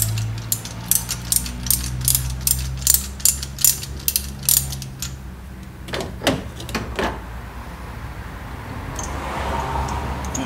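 Ratchet wrench clicking as it is swung back and forth, unscrewing a spark plug from the engine, about three clicks a second. The clicking stops about five seconds in, followed by a few brief scraping sounds.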